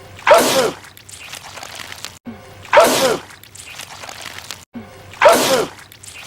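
A man's loud sneeze from a film clip played on a loop, so the same sneeze repeats three times about two and a half seconds apart, each time after a brief cut to silence.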